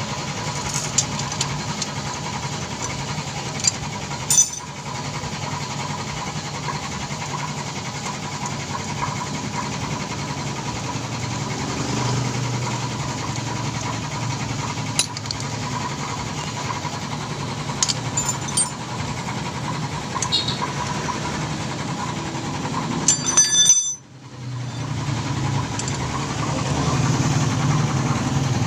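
Steady low drone of a motor vehicle engine running nearby, with scattered sharp metal clicks and taps from a wrench on the bolts of a scooter's engine case. A short rattle of clicks comes late on, then the sound cuts out for a moment.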